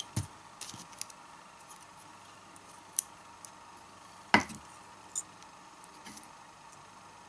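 Small clicks and knocks of lithium-ion cells and a spot welder's electrode holder being handled on a workbench, with one louder knock a little past the middle.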